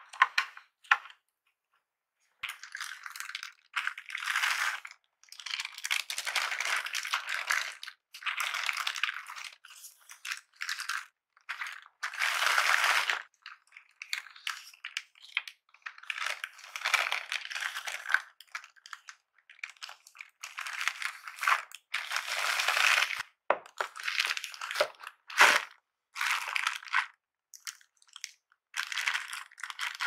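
Tissue-paper wrapping rustling and crinkling in irregular bursts as it is handled and its seal peeled, with a few sharp taps between, the loudest about 25 seconds in.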